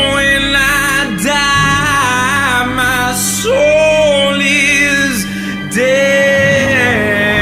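Music with singing: a voice holding long notes with a slight waver over a steady instrumental backing.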